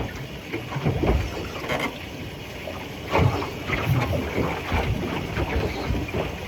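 Wind buffeting the microphone and water slapping a small boat, with irregular knocks and thumps on the hull.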